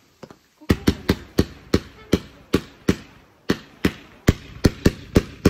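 Firework going off: a run of sharp bangs, about three a second, starting about a second in.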